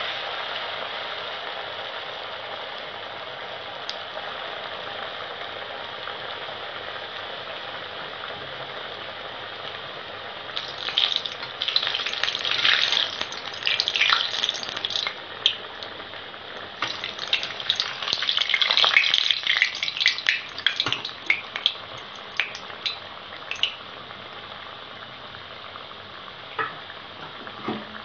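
A ulundu vadai (urad dal fritter) deep-frying in hot oil in a kadai, with a steady sizzle that slowly eases. From about ten seconds in come louder bursts of crackling and spattering, heaviest in the middle, as a perforated ladle turns the vada in the oil, then thinning out again.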